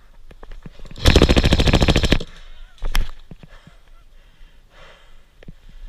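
Airsoft gun firing a rapid full-auto burst of about a second, around twenty shots a second, followed a moment later by a short second burst. Scattered faint clicks follow.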